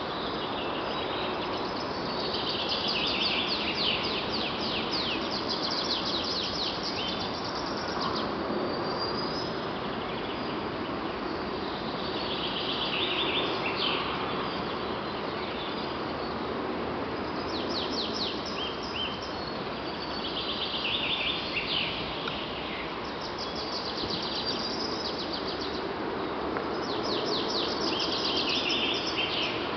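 Woodpecker drumming on a steel angle bracket: fast, high-pitched rolls of taps, each lasting a second or two and repeated every few seconds over a steady background hiss.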